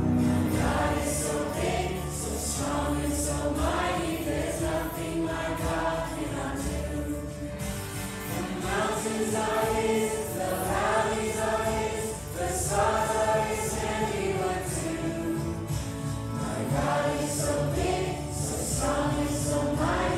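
A group of children and adults singing a worship song together at morning chapel.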